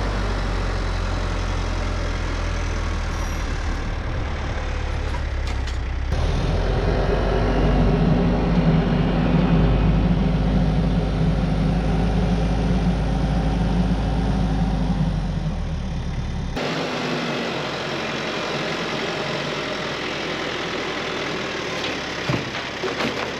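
Engine running steadily with a deep rumble, louder through the middle stretch; the sound changes abruptly about six seconds in, and around sixteen seconds in the deep rumble drops away, leaving a lighter, steady noise.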